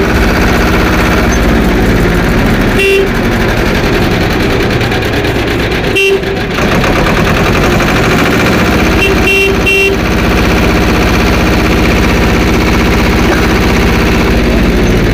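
A vehicle engine running steadily, with a horn tooting: once about three seconds in, once about six seconds in, and three quick toots at about nine to ten seconds.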